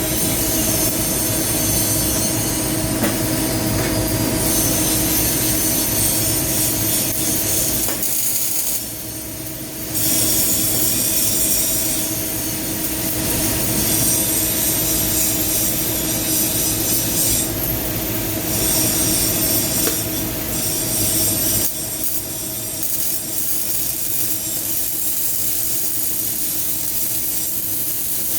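CO2 gas-shielded arc welding with solid wire: the arc crackles and sizzles steadily as a bead is laid on steel plate. It drops off briefly about eight seconds in, then starts again.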